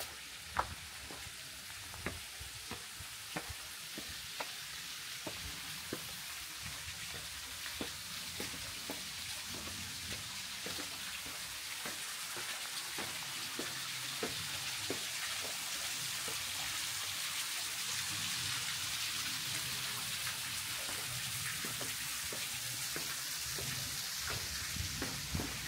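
Footsteps on a trail, about two a second, over a steady rushing hiss that grows gradually louder.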